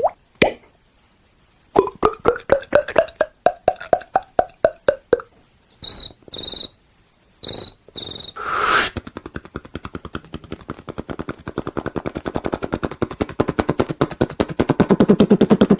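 A man imitating sound effects with his mouth. First comes a run of quick popping pulses whose pitch rises then falls, then four short high chirps like a cricket, a brief hiss, and a fast rattling pulse that grows steadily louder toward the end.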